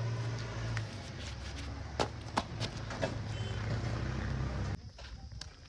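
A diesel vehicle engine running steadily with a low hum, with scattered clicks and knocks over it; the engine sound cuts off suddenly near the end.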